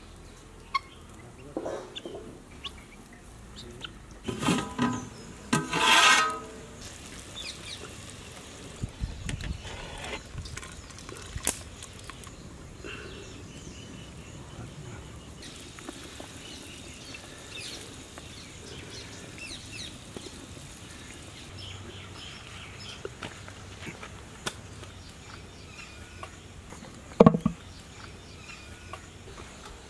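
Helmeted guinea fowl calling, with a few harsh, loud calls about five seconds in. After that there is a faint outdoor background with scattered small clicks, and a single sharp knock near the end.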